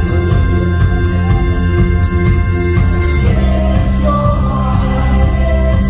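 Live pop band playing loud and steady, with keyboard and regular drum beats over a heavy bass, heard from within the crowd. Singing comes in about three seconds in.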